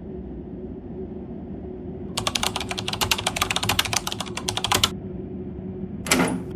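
Rapid typing on a computer keyboard, a quick run of clicks starting about two seconds in and lasting nearly three seconds, over a low steady hum. Near the end comes a short whoosh.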